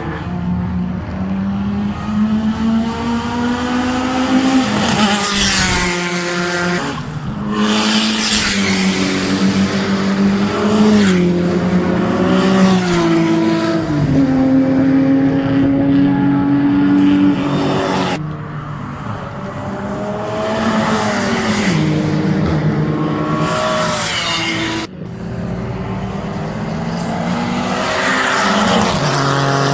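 A car engine driven hard on a racetrack: the revs climb and then step down with each gear change, over and over, with the engine note cutting sharply twice in the second half as the throttle is lifted.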